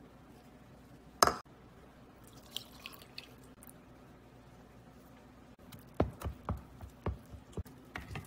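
Wooden spoon stirring thick banana batter in a mixing bowl: a run of wet, squelching knocks, several a second, in the last couple of seconds. A single sharp knock comes about a second in.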